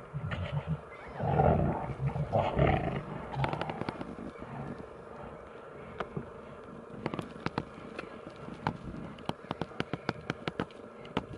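Brown bears fighting: deep, rough growls and roars in the first few seconds, loudest between about one and three seconds in. From about six seconds on the growling drops away, leaving a run of short sharp snapping clicks.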